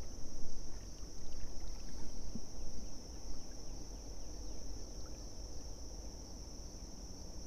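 Creekside ambience: a steady high-pitched insect drone over a low, uneven rumbling noise of moving air and water.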